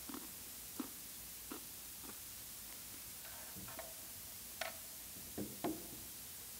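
Faint, scattered clicks and light taps, about a dozen at irregular intervals, with a brief light ring a little past the middle: small communion cups and bread being handled and taken.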